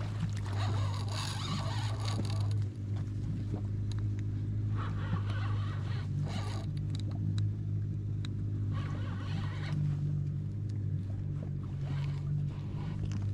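Boat's outboard motor running steadily at low speed, a constant low hum, with several rushes of water washing against the hull every few seconds.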